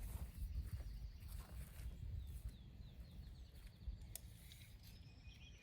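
Faint outdoor ambience: a low, uneven rumble with faint bird chirps in a short run near the middle and a couple of light clicks.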